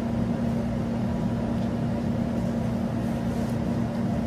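Steady hum of commercial kitchen equipment: a constant low drone with a steady tone that holds level throughout.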